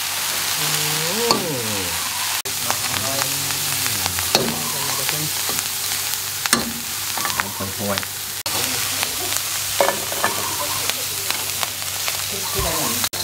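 Crickets and beetles sizzling as they are stir-fried in a metal wok, with a metal spatula scraping and clicking against the pan many times over.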